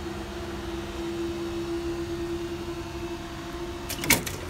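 Level crossing barrier mechanism humming steadily as the booms rise. It stops with a sharp knock about four seconds in, as the booms reach upright.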